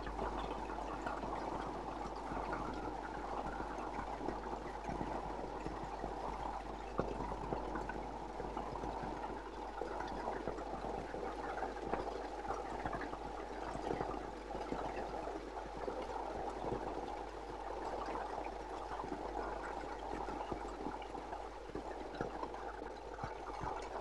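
Spring water gushing steadily from a spout and splashing down, an even rushing sound, over a constant low hum.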